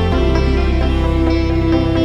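Background music: a calm new-age piece with plucked string notes over a sustained low bass tone.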